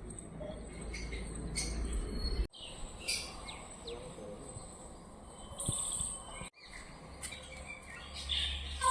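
Small birds chirping and tweeting in short, scattered calls over a faint low hum. The sound drops out briefly twice, about two and a half seconds in and again about six and a half seconds in.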